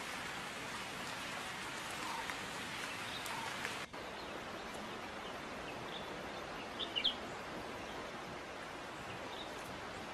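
Steady rush of running water, with a few short bird chirps about seven seconds in. The sound drops out for an instant about four seconds in.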